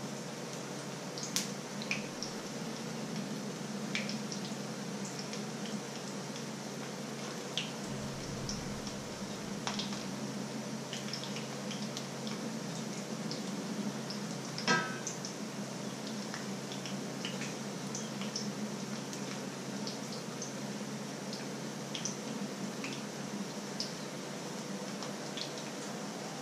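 Potato pancakes frying in hot oil in a pan: a steady sizzle with scattered crackles and pops, over a low steady hum. One sharp clink about fifteen seconds in.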